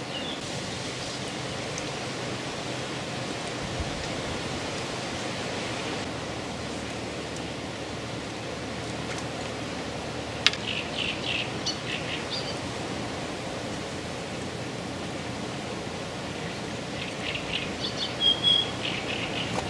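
Steady outdoor background noise, with small birds chirping in short high bursts about halfway through and again near the end. A single sharp click comes just before the first chirps.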